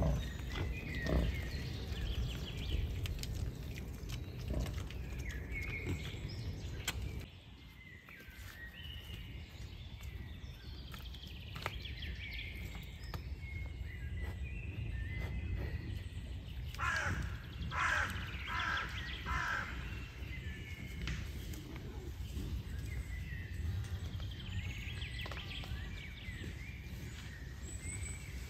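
Woodland ambience around foraging wild boars: birds chirping throughout over a steady low rumble. About two-thirds of the way through comes a quick run of about four loud calls, like a crow's caws.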